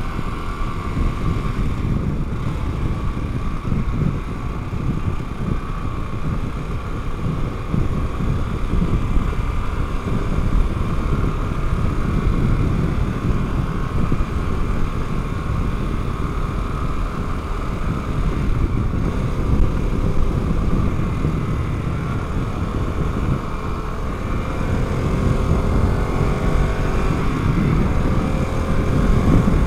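Harley-Davidson Pan America Special's 60-degree V-twin running under way while accelerating, heard from the rider's seat with heavy wind noise on the microphone. The engine note climbs in pitch over the last few seconds as the bike picks up speed.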